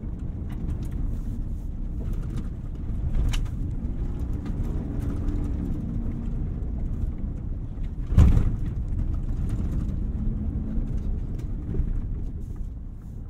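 Cabin sound of a 2022 Ram 2500 Power Wagon driven fast on a dirt trail: a steady low road and tyre rumble with the 6.4-liter Hemi V8 running under it. There is a light knock about three seconds in and a heavy thump about eight seconds in.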